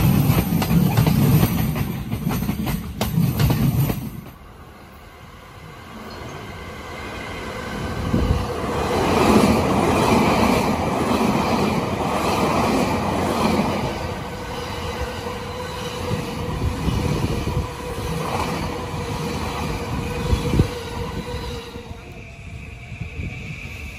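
Electric commuter trains running past at a station. First a yellow-banded E231 Chuo-Sobu local train rumbles low for a few seconds and cuts off abruptly. Then an E259 Narita Express passes close by, its wheels and motors building to a loud rush and settling into a steady hum.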